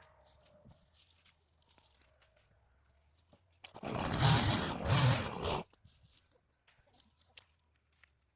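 Twigs and leafy brush crunching and rustling for about two seconds near the middle, as cut branches are handled and thrown onto a brush pile, with a few faint snaps around it.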